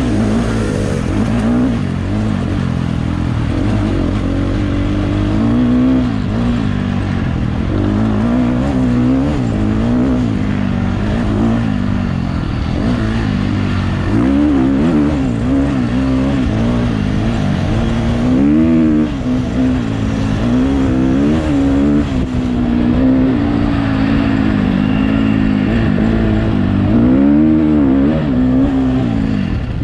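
Off-road dirt bike engine revving up and down over and over as the throttle is rolled on and off, heard from on board the bike.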